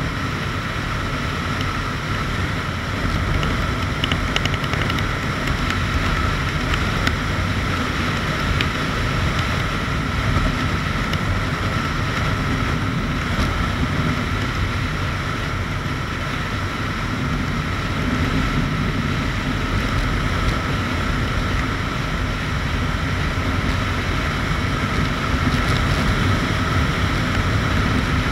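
Aprilia RSV 1000 R's 60° V-twin engine running steadily at cruising speed in fifth gear, mixed with a rush of wind noise. It grows a little louder near the end.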